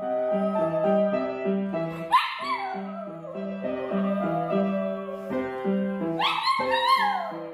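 A small dog howling along to a piano being played: two howls, one about two seconds in and one about six seconds in, each rising then falling, over the piano's steady repeated chords.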